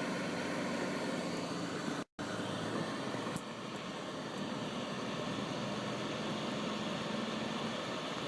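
Steady car noise heard from inside the cabin while driving: engine and tyre hum with a low drone. The sound cuts out completely for a moment about two seconds in, and there is a single sharp click about a second later.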